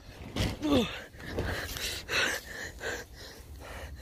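A boy's short breathy gasps, with a brief grunt falling in pitch a little under a second in, from the effort of scrambling about on a giant inflated packing pillow.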